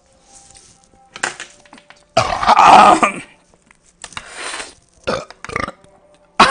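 A man lets out a loud, drawn-out belch, lasting about a second, just after gulping a canned drink. A shorter, quieter burst follows, then two brief knocks.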